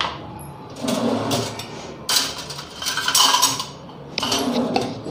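Kitchen utensils and containers being handled, clattering and scraping in several short bouts, as a spoon and jar are used.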